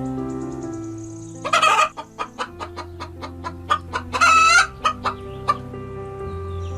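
A chicken clucking in a quick run of short clucks, broken by two louder, half-second squawking calls, over soft background music.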